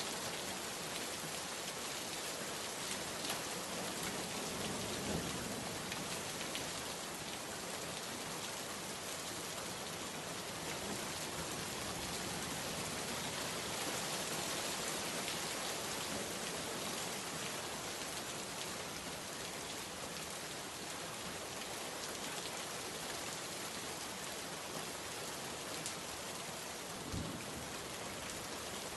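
Steady rainstorm: an even hiss of rain falling on surfaces, with individual drops ticking through it. A brief low thump comes near the end.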